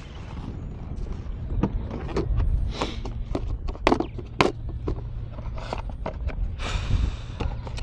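Scattered sharp clicks and knocks of gear being handled in a plastic kayak, including a clear plastic tackle box picked up and opened, with a brief rustle about seven seconds in, over a steady low wind rumble on the microphone.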